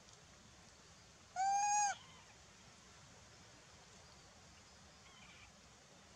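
Monkey giving a single short, high-pitched call about a second and a half in, lasting about half a second, over faint background hiss.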